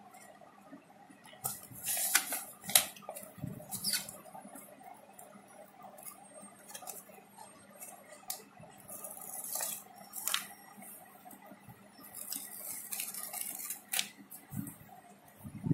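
A paper sticker sheet rustling and crinkling in the hands as it is handled and a sticker is peeled off, in irregular patches, with a few sharp clicks.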